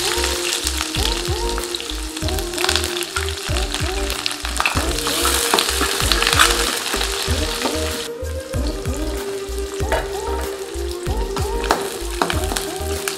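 Chopped shallots sizzling in hot oil in a steel kadai, stirred with a steel spoon that scrapes the pan; the sizzle eases about eight seconds in. Background music with a steady beat plays beneath.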